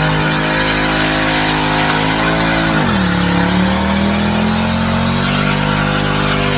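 Mercedes-Benz C-Class estate doing a burnout: the engine is held at high revs with the rear tyres spinning against the road. About three seconds in the revs drop sharply, then climb slowly back up.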